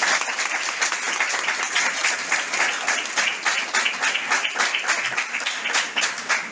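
A small group of people applauding, with a steady patter of hand-claps.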